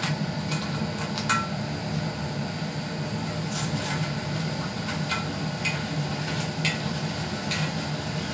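Razor blade scraping and ticking against the glass face of a 25AP22 color picture tube, prying up flakes of leftover PVA bonding material. Irregular sharp ticks, the loudest about a second in, over a steady low hum.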